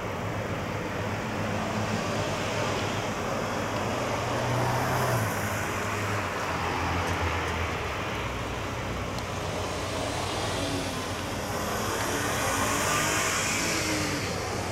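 Steady engine rumble and traffic noise, with a low hum through the first half and faint rising and falling engine tones near the end.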